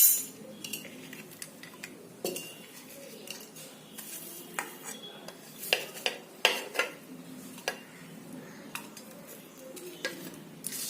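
Pestle pounding whole spices in a mortar to crush them: irregular knocks and clinks, roughly a second apart.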